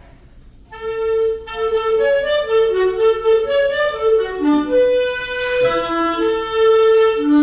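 Wind band playing a short passage in rehearsal, entering just under a second in, with a moving line of held and changing notes.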